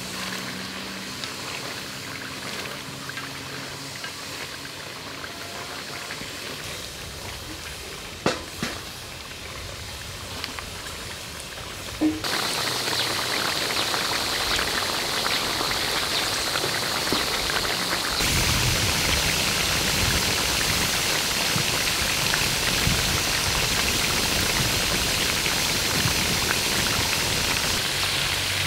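Whole tiger shrimp deep-frying in hot oil in a metal wok, a steady sizzle and crackle. About twelve seconds in it turns abruptly louder and denser, after two short sharp clicks.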